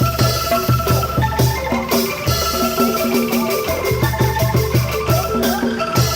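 Angklung ensemble playing a rhythmic tune: many short, ringing bamboo notes over a steady low beat.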